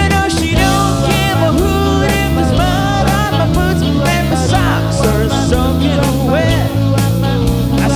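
Blues band playing an instrumental passage: a bass line, steady drum strokes, and a lead line with bending notes.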